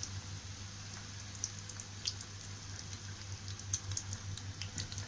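Batter-coated elephant yam pieces deep-frying in hot oil in a kadai: a steady sizzle full of scattered small crackles and pops, over a constant low hum.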